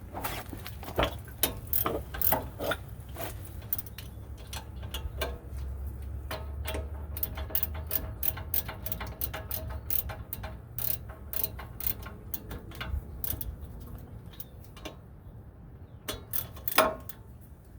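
Hand ratchet clicking in quick irregular runs as the hub assembly's mounting bolts are run in and tightened.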